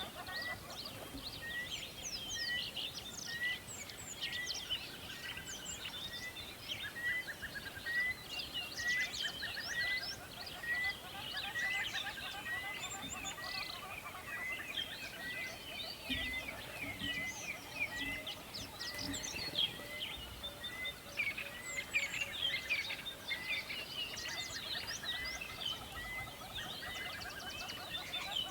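Many songbirds chirping and singing at once, with one bird repeating a short rising note a little more than once a second through most of the stretch, over the faint steady rush of a river.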